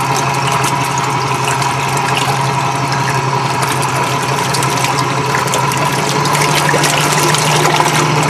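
Homemade electric outboard, a permanent-magnet DC motor driving a Suzuki outboard's lower unit and propeller, running at part throttle, well under half power. Its propeller is churning and splashing the water over a steady motor hum. The hum rises a little in pitch and loudness near the end as the throttle is eased up.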